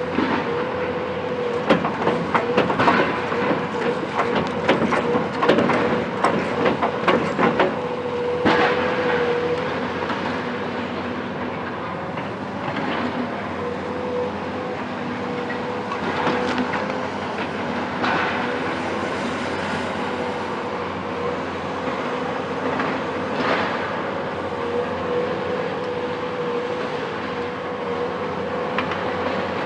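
Cat 374 demolition excavator with its Cat C15 diesel running steadily under a constant steady tone, while rubble and building material crack and clatter: a dense run of impacts for the first eight seconds or so, then a few single sharp cracks.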